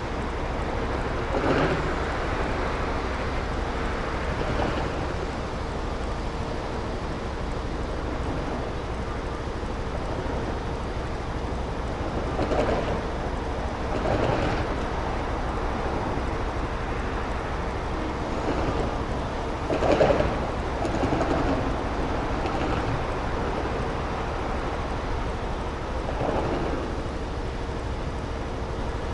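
Traffic noise at a stop in city traffic: a steady low rumble and hum with a faint constant tone, and a few short louder swells of passing vehicles every several seconds.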